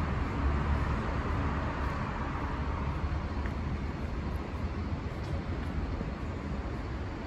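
City road traffic noise: a steady wash of passing vehicles with a low rumble that is strongest in the first few seconds and then eases off.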